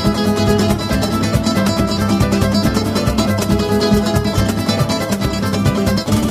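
Background music of rapidly strummed acoustic guitar with a steady, driving rhythm.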